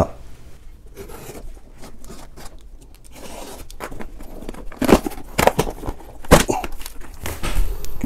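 A product box being opened by hand: packing tape tearing and the box rustling as it is handled, with a few sharp snaps and rips in the second half.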